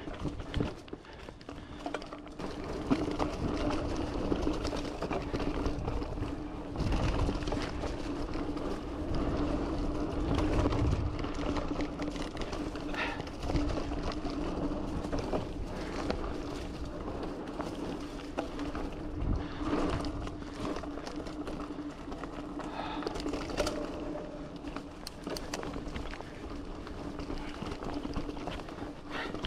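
Giant Fathom 2 mountain bike ridden along a dirt trail: tyres rolling and the bike rattling and clicking over bumps, with a steady hum under it for most of the time.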